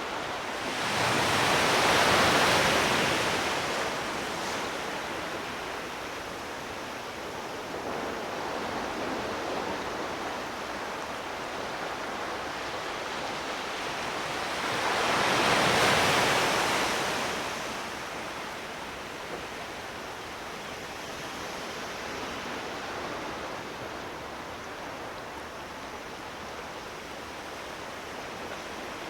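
Sea waves washing ashore: a wave swells and breaks about two seconds in and another about fifteen seconds in, with a steady hiss of surf between them.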